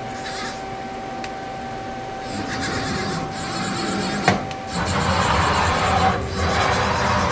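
1993 Femco Durga 25E CNC lathe running through its motions: a steady hum under repeated spells of rasping, rushing mechanical noise, with a sharp clunk a little past four seconds in.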